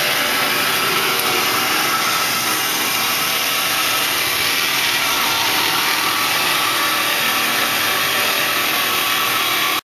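2000 Marvel-Spartan automatic horizontal bandsaw running, its blade cutting through metal stock clamped in the vise: a steady, even hiss.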